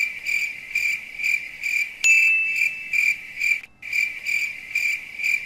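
Cricket chirping sound effect: a regular, high chirp about twice a second, used as the comic cue for sudden silence. About two seconds in a click starts a thin steady tone that lasts about a second and a half.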